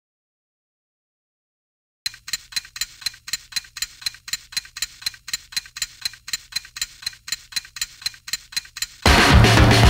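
Metronome clicking steadily at about four clicks a second, starting about two seconds in after dead silence. Loud music with drums cuts in near the end.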